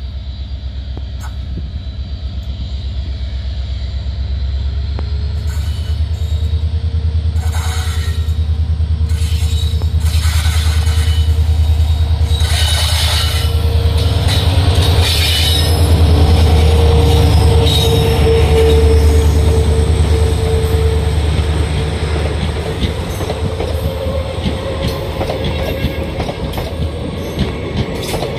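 WDP-4D diesel locomotive pulling a train away from a station and passing close by, its EMD 16-cylinder two-stroke engine throbbing under power and loudest midway. The coaches then roll past with wheels clattering on the rails.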